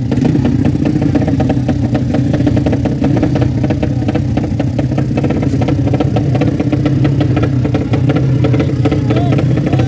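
Drag-racing motorcycle engine running loud and steady with a rapid, even pulse, idling and being blipped.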